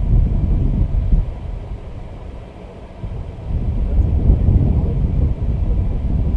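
Wind buffeting the microphone: an uneven low rumble that swells and fades in gusts, easing off in the middle and rising again.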